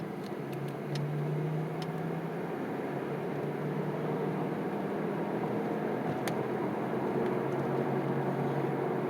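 2007 Chevy Impala heard from inside the cabin: a steady engine drone and road noise, growing gradually louder as the car gets under way. No clunk is heard this time.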